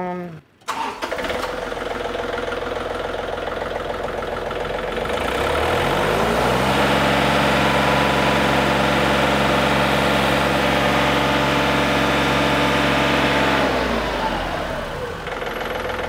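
John Deere 3520 compact tractor's diesel engine starting and catching at once, idling, then throttled up over a couple of seconds to full throttle, about 2800 rpm, held there, and brought back down to idle near the end. This is the test run of a newly replaced throttle cable.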